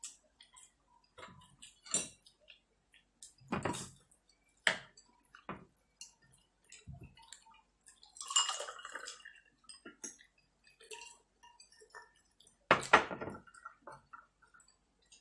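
Forks and spoons clinking and scraping against a plate during a meal, in scattered sharp knocks. About eight seconds in, water is poured from a plastic pitcher into a glass for about a second. The loudest clatter of dishes comes near the end.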